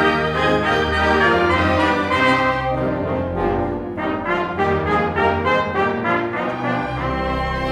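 Orchestra playing a Christmas medley, with brass (trumpets and trombones) carrying the tune.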